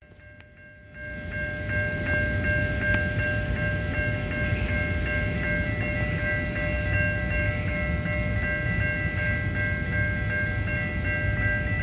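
Railroad crossing warning bell ringing steadily at a lowered-gate level crossing, its bright tones repeating without pause. A steady low rumble rises about a second in and holds underneath.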